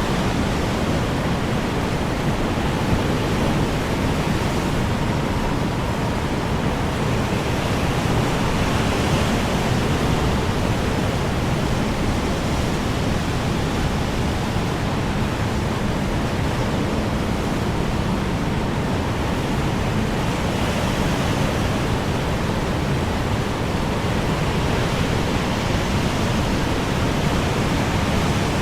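Strong wind blowing steadily, an even, unbroken rushing noise with no gusts standing out.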